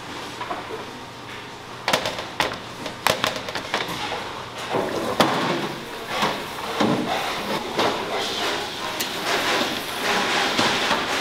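Aluminium sheet pans clanking and scraping against a stainless-steel rack as they are slid into it, a string of sharp metallic knocks starting about two seconds in.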